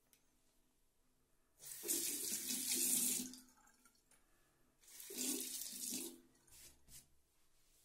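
Tap water running into a bathroom sink in two short bursts, each about a second and a half, a few seconds apart.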